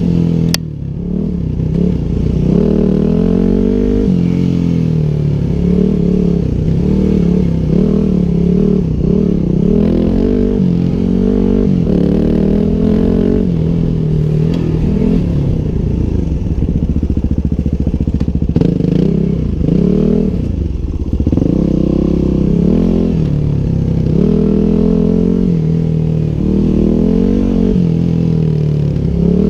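A 2009 Yamaha WR250X's 250 cc single-cylinder four-stroke engine running on a dirt trail, its note rising and falling again and again as the throttle is opened and closed, sounding muffled. A sharp click about half a second in.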